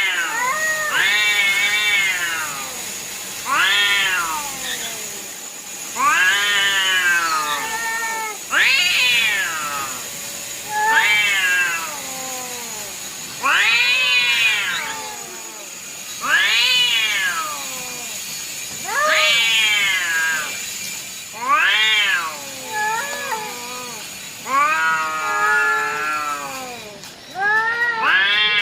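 Repeated drawn-out meows, about one every two seconds, each rising then falling in pitch.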